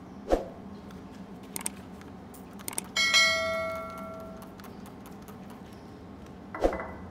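A couple of small clicks, then a bright bell ding that rings and fades over about a second and a half: the subscribe-button notification sound effect. Dull thumps sound just after the start and near the end.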